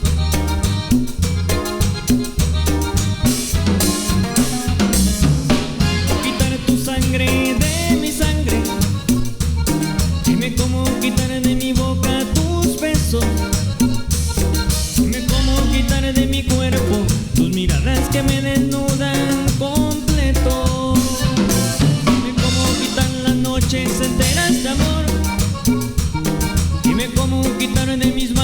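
Band playing an instrumental stretch of a cumbia-style song, drum kit and bass keeping a steady beat under the melody instruments.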